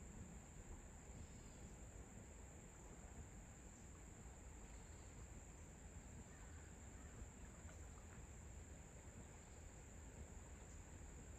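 Near silence with a faint, steady, high-pitched insect chorus of crickets trilling without a break.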